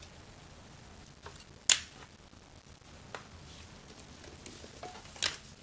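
A few scattered sharp clicks and taps from handling a plastic DJI Phantom remote controller while switching on its Wi-Fi, the loudest a little under two seconds in and another near the end.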